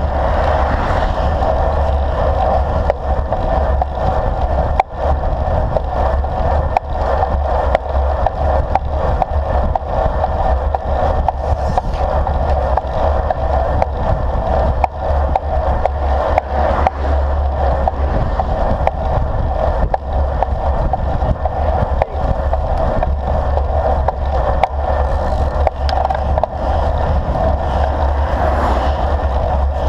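Wind rushing over a handlebar-mounted action camera's microphone on a moving road bike, with a low rumble of tyres rolling on asphalt and frequent small knocks. An oncoming car passes near the start and another near the end.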